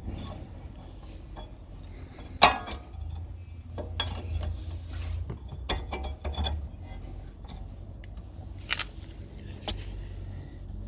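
Metal tools and brake parts clinking and clicking as a rear brake caliper is worked on: the piston being pushed back in and the pads fitted. A string of separate sharp clinks, the loudest about two and a half seconds in.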